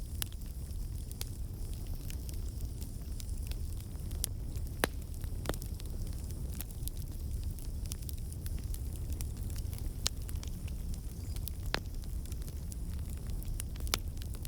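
Campfire burning: a steady low rumble under irregular crackling, with a few louder sharp pops scattered through.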